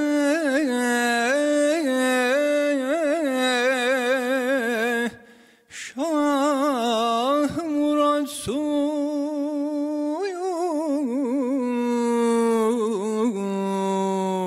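A solo male voice sings a Turkish classical vocal line without accompaniment. It holds long notes and ornaments them with rapid melismatic turns, pausing for breath about five seconds in.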